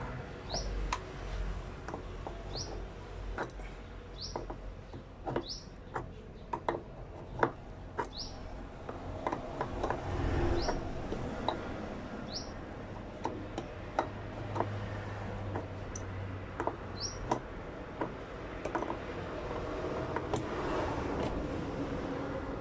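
Clicks, taps and knocks of metal parts and hand tools as the spring and parts of a washing machine's spin assembly are refitted by hand. Through most of it a short high rising chirp repeats about every second or two.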